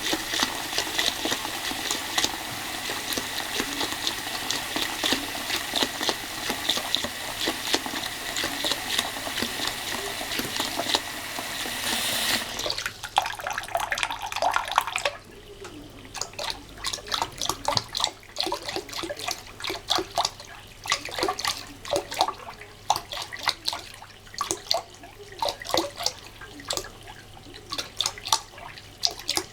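Water running from a tap into a washbasin, splashing steadily. About fifteen seconds in the flow becomes much quieter, leaving quick, irregular small splashes and drips.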